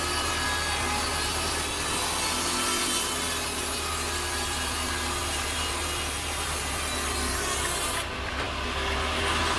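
A powered saw cutting through a log, a steady rasping run. About eight seconds in, the high hiss drops away.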